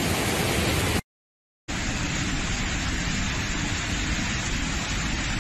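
Rushing floodwater: a steady, heavy rush of a muddy torrent. It drops out to silence for about half a second about a second in, then a similar steady rush of water pouring over a road resumes.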